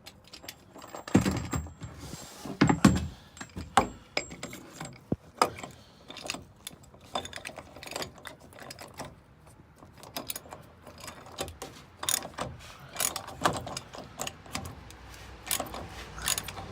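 Socket ratchet clicking in short irregular strokes as it snugs down the plastic cap of a 2017 Duramax diesel's fuel filter housing, with a few louder knocks in the first few seconds.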